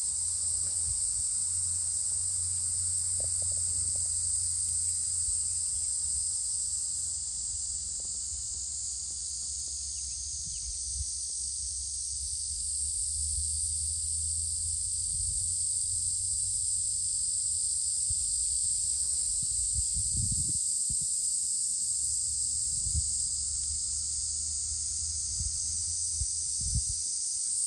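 A steady, high-pitched insect chorus that does not let up, over a low rumble with a few soft thumps in the second half.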